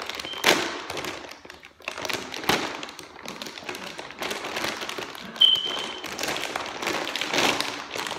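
Plastic bag of hamster food crinkling and crackling as it is tugged and pulled open by hand, in irregular bursts with a few sharper cracks.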